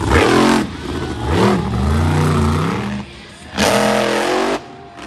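Monster truck engine revving hard in repeated surges, its pitch climbing and dropping, with the loudest burst about three and a half seconds in.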